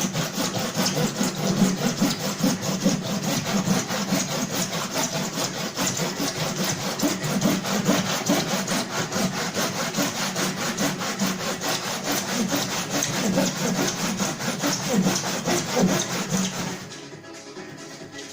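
Saw cutting steadily through the metal of a car, in a fast, even run of strokes that stops abruptly near the end.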